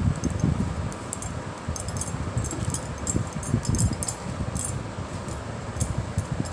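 A hand mixing grated coconut in a bowl: an uneven rustling and bumping, with many light clicks and jingles from the bangles on the wrist.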